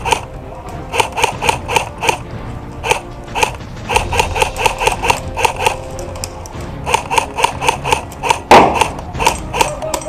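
Airsoft guns firing bursts of rapid shots, each burst a quick run of sharp cracks, with pauses between bursts and one louder crack about eight and a half seconds in.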